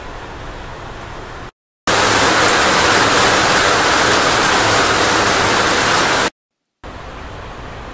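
Heavy rain drumming on a steel shipping container roof, heard from inside as a steady hiss. There are three separate recordings divided by brief silences: a moderate first one, a much louder and brighter middle one lasting about four seconds, and a moderate third one, showing how much the noise inside differs from one part of the container house to another.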